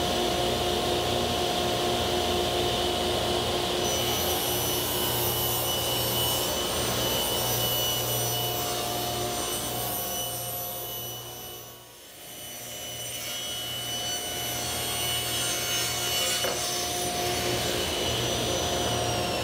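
Table saw running and ripping plywood sheets: a steady motor whine with the hiss of the blade cutting through the wood. The sound drops away briefly about twelve seconds in, then picks up again.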